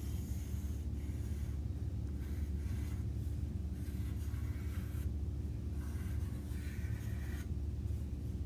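Wooden pencil scratching across paper in a run of separate drawing strokes with short pauses between them, over a steady low hum.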